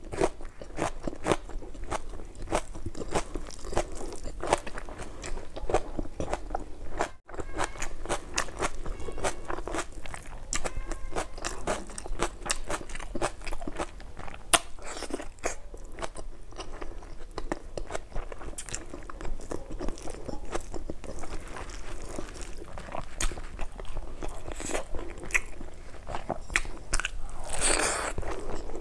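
Close-miked eating sounds: wet chewing, mouth smacks and crisp crunching as mouthfuls of rice, fried chicken offal and raw red onion are eaten by hand.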